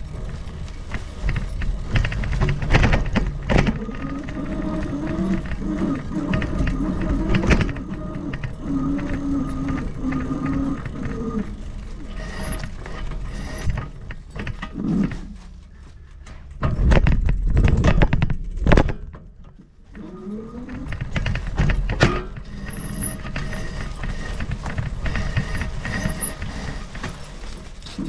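Rattling and knocking of an e-bike jolting over a rough, leaf-covered dirt trail, with rumble on the microphone. A wavering hum runs through the first part, and the noise drops away briefly twice in the second half.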